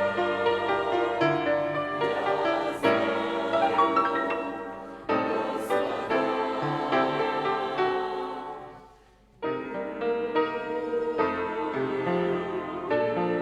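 Church choir singing a hymn. The music fades away about eight seconds in, pauses briefly, and starts again just after nine seconds.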